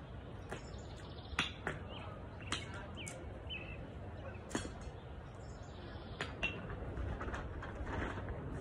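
Outdoor ambience: several sharp clicks a second or two apart over a steady low rumble, with a few short bird chirps a couple of seconds in.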